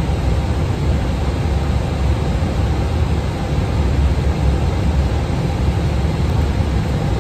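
Steady cockpit noise of an airplane in flight: a constant low rumble of airflow and engines with a hiss over it, heard from the flight deck.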